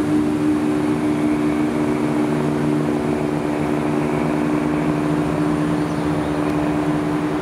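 Two-coach Class 170 Turbostar diesel multiple unit pulling out of the station, its underfloor diesel engines running with a steady drone.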